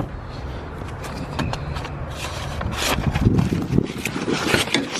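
Handling noise: scattered clicks and scrapes close to the microphone over a low rumble, busiest about three seconds in.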